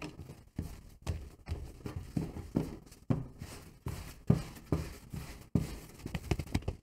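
Very soft rye sourdough being rounded by hand on a floured wooden board: repeated dull thuds of the dough pressed and turned against the wood, about two to three a second, with dry rubbing between them.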